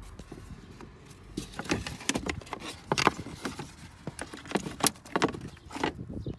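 Irregular clicks, taps and rattles of hand work on plastic and metal parts around the clutch pedal, beginning about a second and a half in.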